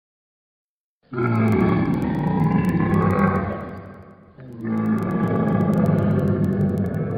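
Tylosaurus creature sound effect: two long, deep roars, the first starting about a second in and lasting about three seconds, the second following right after and still going at the end.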